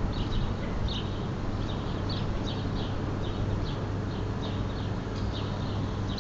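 A small bird chirping over and over, short high chirps about two to three a second, over a steady low hum.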